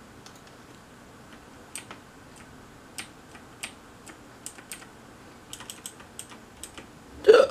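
Computer keyboard being typed on: sparse, irregular light clicks of keys. Near the end there is one short, much louder knock.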